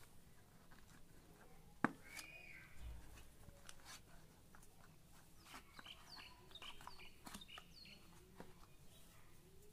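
Quiet handling of a cardboard box insert and a charging cable, with soft clicks and one sharp click about two seconds in. Faint bird chirps sound in the background, several of them in the second half.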